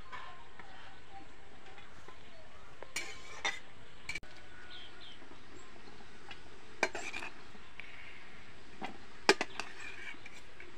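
Metal tongs, a steel plate and an aluminium cooking pot clinking as boiled green beans are lifted from the pot onto the plate: a handful of separate sharp clinks, the loudest about nine seconds in.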